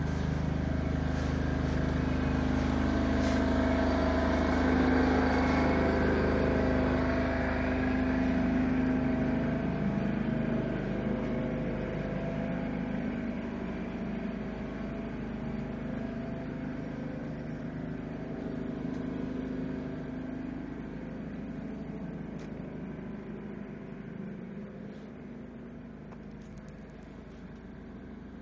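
A motor vehicle's engine running steadily, loudest in the first third, with a slight waver in pitch. It then fades slowly as the vehicle moves away.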